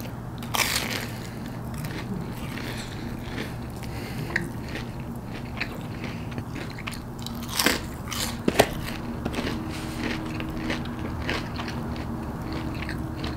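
Biting into and chewing a breaded fried mozzarella stick close to the microphone, with a crunch about half a second in and two louder crunches around seven and a half and eight and a half seconds in. A steady low hum runs underneath.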